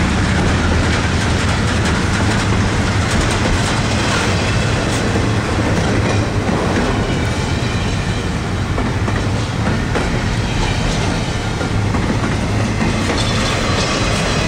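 Double-stack intermodal freight cars rolling past close by: a steady, loud rumble of steel wheels on rail with a few clacks over the rail joints.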